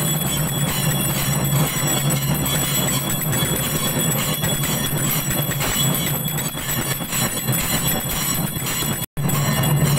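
Puja bells clanging rapidly and continuously in a dense metallic clatter, with steady ringing tones held throughout. The sound cuts out for an instant about nine seconds in.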